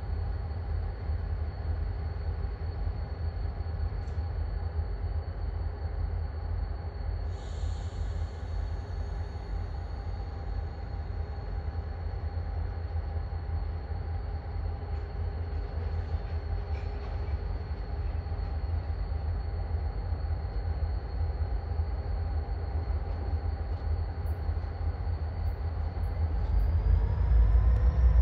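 EMD GP39-2 diesel locomotives approaching slowly at the head of a freight train: a steady, heavy low engine rumble with thin, high whining tones above it. The whine rises in pitch and the sound grows louder over the last couple of seconds as the train draws near.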